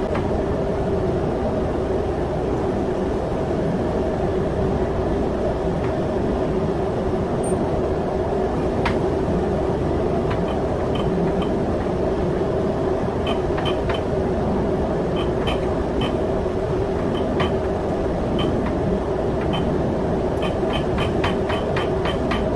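Steady drone of running engine-room machinery. From about ten seconds in, irregular light metallic clicks come in small runs from work at the hand-pumped fuel injector test stand while the injector's opening pressure is set.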